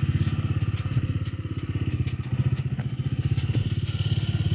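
Bajaj Dominar 400's single-cylinder engine running at low revs while the motorcycle rolls along slowly, its exhaust pulsing evenly with small rises and falls in level.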